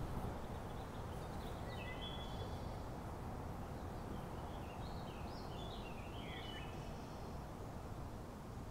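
A bird chirping and trilling in two short bouts, about a second in and again around the middle, over a steady low outdoor rumble.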